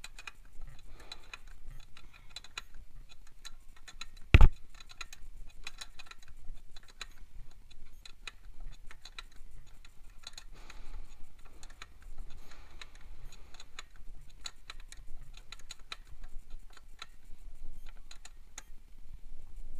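Open-end wrench working a wheel nut on a 50cc mini dirt bike: irregular light metal clicks and ticks as the wrench is turned and repositioned, with one loud knock about four seconds in.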